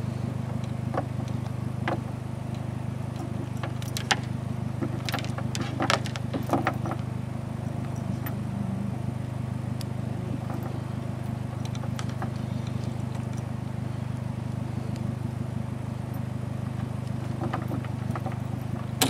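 A pickup's engine idling steadily, with a few sharp metallic clinks and rattles of the dog box latch and chain as a hound is collared.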